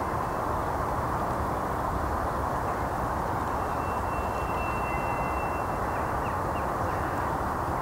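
Steady, unbroken droning whoosh with thin, high whistling tones that come and go above it, which the uploader guesses is wind blowing through a pipe somewhere nearby.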